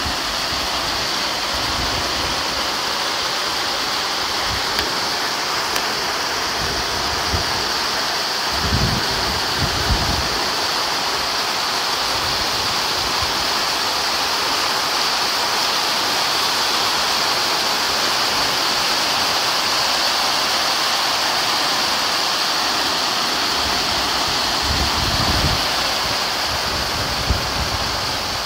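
Heavy rain pouring steadily as a dense, even hiss, with brief low rumbles about nine seconds in and again near the end.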